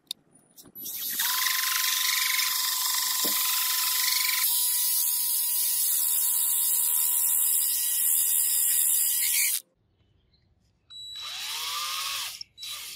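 Power drill spinning a styrofoam block in its chuck while the foam is ground into a cone against an abrasive disc: a steady motor whine with a hiss of abrasion. It runs for about eight seconds, stops, then runs again briefly near the end.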